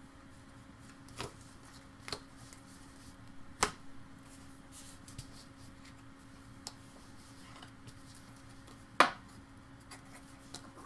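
Glossy refractor baseball cards being handled and set down on a tabletop. There are a few sharp taps and clicks with softer card rustling between them, the loudest tap about nine seconds in, over a faint steady hum.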